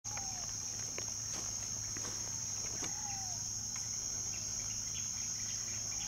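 A steady, high-pitched insect drone from cicadas or crickets fills the background. Twice, about three seconds apart, a short call slides down in pitch, with scattered faint ticks between.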